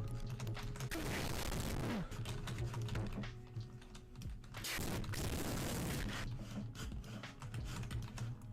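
Typing on a laptop keyboard: a fast, uneven run of key clicks, with a short lull about four seconds in.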